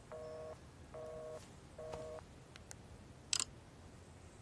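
Telephone busy tone after a call is hung up: three short two-note beeps, about one a second. Then, about three seconds in, a short hiss.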